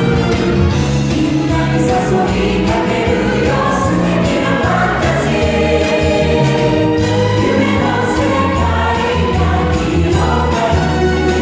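Upbeat stage-show music with a chorus of voices singing, loud and continuous, over a steady bass beat.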